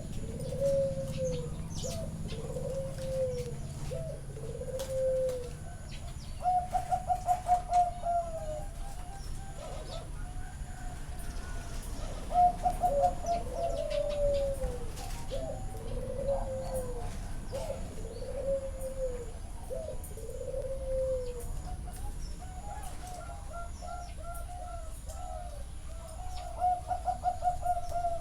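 Zebra doves cooing: bursts of rapid staccato notes, each followed by a string of soft, arched coos spaced about a second or more apart, repeated several times.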